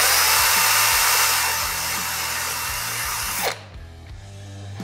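Cordless drill running as its bit enlarges the hole in a 3D-printed PLA plastic antenna reflector, a steady whine; it stops about three and a half seconds in.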